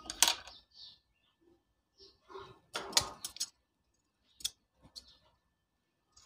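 Large scissors snipping through a doubled strip of flat white elastic: a quick cluster of sharp snips about halfway through and a single snip over a second later, after a tap near the start and some light handling.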